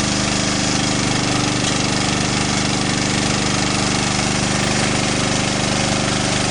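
Engine-driven machinery running steadily with a fast, even pulse.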